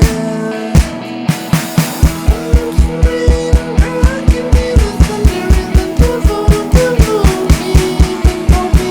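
Rock band playing an instrumental passage, with no bass: pitched lines that bend over Roland V-Drums electronic drums. The drums start sparse, then settle about two seconds in into a steady fast beat of about three to four hits a second.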